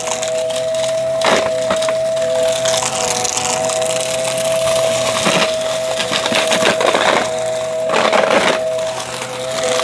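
Vacuum cleaner running with a steady motor whine while it sucks up crunchy debris, which crunches through it in several bursts, the strongest near the end.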